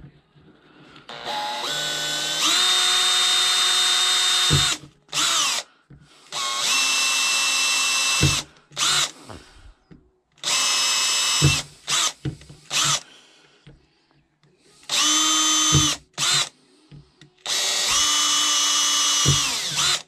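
Makita cordless drill running in short trigger bursts, a thin bit drilling small holes through a plastic bottle cap. Its motor whine comes in about five longer runs with brief blips between, pitch rising as the trigger is squeezed and falling away as it is released.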